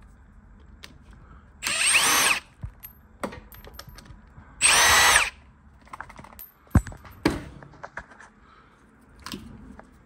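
Cordless power driver run in two short bursts of under a second each, about three seconds apart, backing out the screws that hold a seat switch in its mount. Clicks and a sharp knock from the parts being handled follow.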